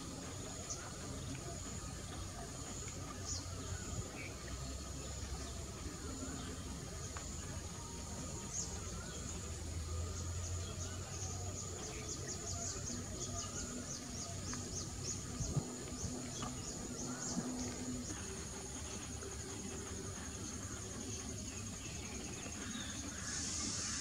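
Insects droning steadily in the undergrowth, a high continuous buzz that breaks into a rapid, even pulsing trill for several seconds midway, over a faint low rumble of outdoor ambience.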